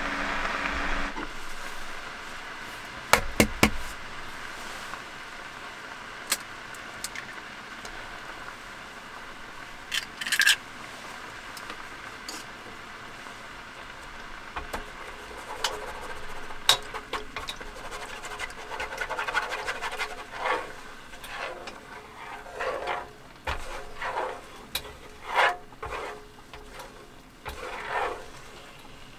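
Cooking at an electric hot-pot pan: scattered sharp knocks and clinks, with an egg cracked into the pot about a third of the way in. Over the second half come chopsticks tapping and stirring in the pot, over a faint steady simmer.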